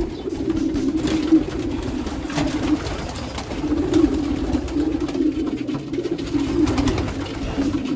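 Racing pigeons cooing steadily in their loft, many birds overlapping in a continuous low murmur, with a burst of wing flaps about four seconds in.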